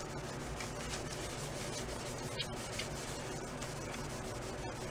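Cloth rag rubbing steadily around the bare wooden shell of a 1936 Slingerland snare drum, wiping on a coat of wood stain.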